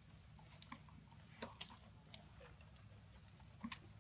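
Faint, scattered clicks and crackles of dry leaf litter as monkeys shift about on the ground, the sharpest about one and a half seconds in and two more near the end, over a low steady background hum.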